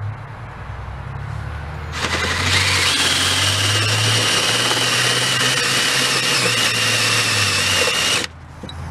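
Cordless drill boring into the underside of a cast aluminum piston to take weight off it. The drill runs up to full speed about two seconds in, cuts with a steady whine for about six seconds, then stops abruptly.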